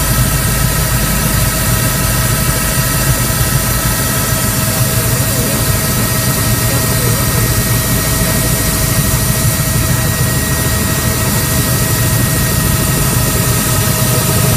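Helicopter in flight heard from inside the cabin: a loud, steady engine and rotor din with several thin, steady whining tones over it.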